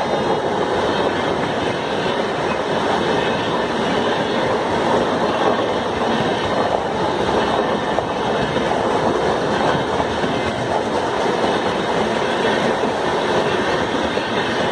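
Passenger express train running on the rails, a loud, steady rolling noise of wheels on track that holds evenly throughout.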